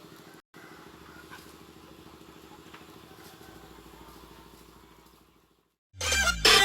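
Faint, steady hum of a running engine that fades out after about four and a half seconds. About six seconds in, loud electronic music starts abruptly.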